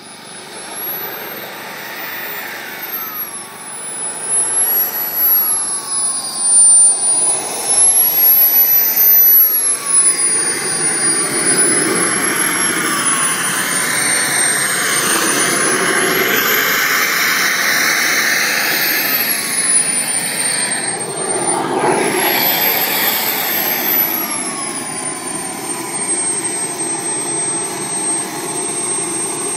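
Model jet's turbine engine running, a high whine that rises and falls in pitch several times as the throttle is worked, over a loud rushing exhaust noise.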